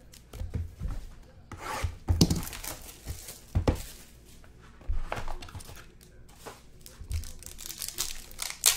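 Topps Five Star trading-card box being unwrapped and opened by hand: packaging rubbing, tearing and crinkling in irregular short bursts, the sharpest about two seconds in and near the end.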